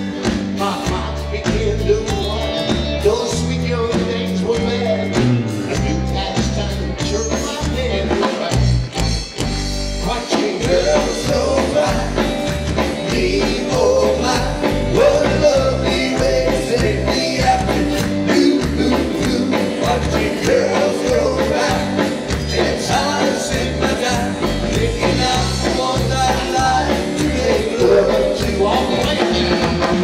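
Live rock and roll band playing, electric guitars and drum kit, with a male voice singing over it.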